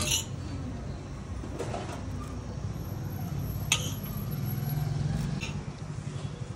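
Street ambience with a steady low traffic rumble that swells midway, and sharp metal clinks of utensils at a dosa griddle, one right at the start and a louder one about halfway through.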